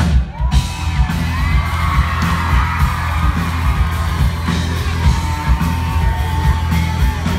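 Live rock band playing loud through a PA, heard from inside the crowd: a heavy bass, a long held note in the second half, and fans yelling and whooping.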